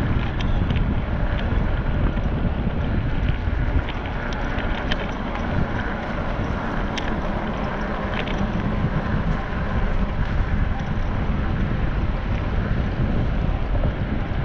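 Steady wind buffeting the microphone over a continuous low rumble, with a few faint clicks now and then.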